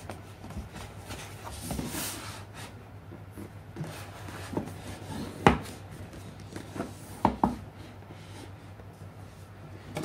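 Cardboard retail box being handled and turned over in the hands: the cardboard rubs and scrapes, with a few sharp taps and knocks, the loudest about five and a half seconds in and two more close together near seven and a half seconds.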